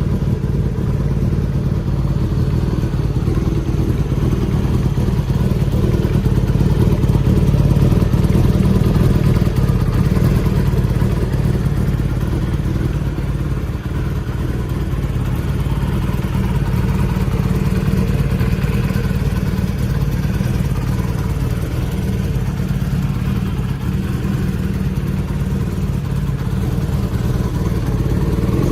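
Kawasaki Zephyr 750's air-cooled inline-four motorcycle engine running steadily, with only slight rises and falls in level.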